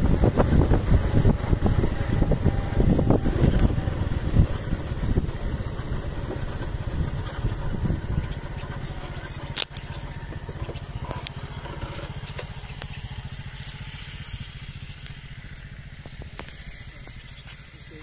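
Small motorcycle engine running as it rides along a rough dirt track, with wind and road rumble. The sound breaks off abruptly about halfway through and is replaced by a much quieter, steady low hum.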